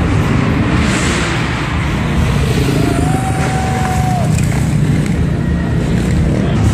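Motorcycle engines running loud and steady in a large indoor hall, with one high held tone, like a whistle, lasting about a second and a half near the middle.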